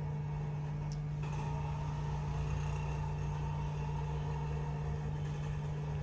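Steady hum of a hot-air rework station's blower running, with a low drone underneath; a faint click about a second in, after which a higher steady whine joins the hum.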